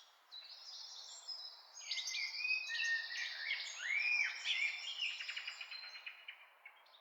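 Several birds chirping and calling together, busiest from about two seconds in, over a faint steady background hiss.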